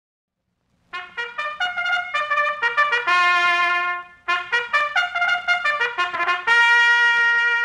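Opening theme fanfare of a 1946 radio program on a solo brass horn, in the style of a bugle call. Quick repeated notes lead into a held note, then more quick notes and a final long held note. It starts about a second in.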